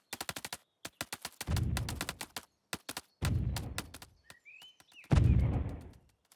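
Animated-cartoon sound effects: runs of rapid sharp clicks and three low booms about two seconds apart, each fading away, with a short chirp just before the last boom.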